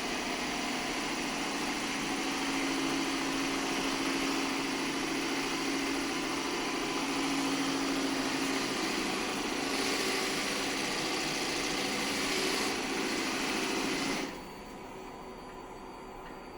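Shark robot vacuum system's suction motor running with a steady hum and rush of air, growing hissier for a few seconds past the middle, then dropping suddenly to a much quieter steady hum about 14 seconds in.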